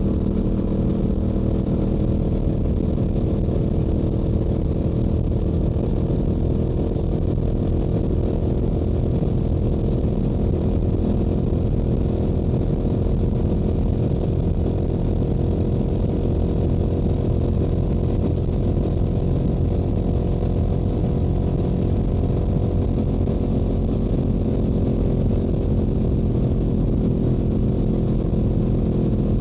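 Stock exhaust of a Yamaha YZF-R7's 689 cc parallel-twin engine, running steadily at highway cruising speed with little change in pitch, under a low rumble of wind on the microphone.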